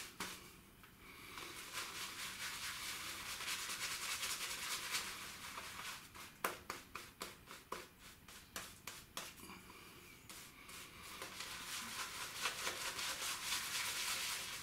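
Silvertip badger shaving brush working lather over a stubbly face: a soft, scratchy swishing, with a run of quicker, separate brush strokes about halfway through.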